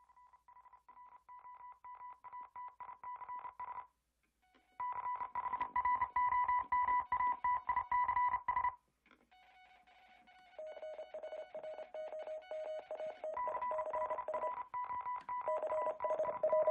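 Background music: an instrumental passage of quickly repeated high notes that fades in, stops briefly twice, and comes back on a lower note.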